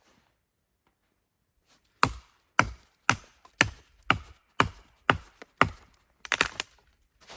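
Near silence, then a run of sharp chopping blows starting about two seconds in, about two a second, ending in a quick cluster of hits near the end.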